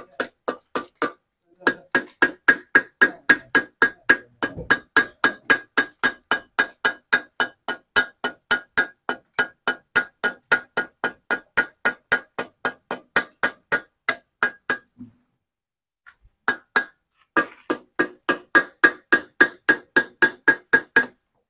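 Metal hand hammer tapping a cylinder liner down into an Isuzu Panther diesel engine block, quick ringing metallic strikes at about four a second. The tapping stops for about two seconds past the middle, then resumes near the end.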